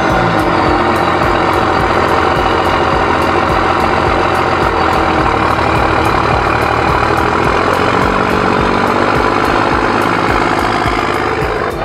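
Dodge Ram's Cummins inline-six turbo diesel running steadily at idle, heard close to the open tip of its new large-diameter side-exit exhaust pipe.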